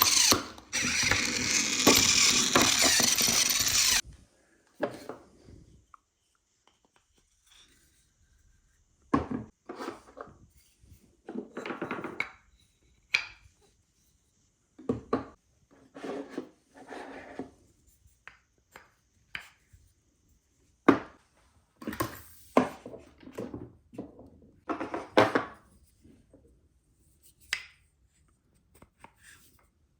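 Marbles rolling along and knocking on a wooden marble-run track: scattered short clacks and brief runs of rolling, with quiet gaps between. It opens with about four seconds of loud, dense noise that cuts off suddenly.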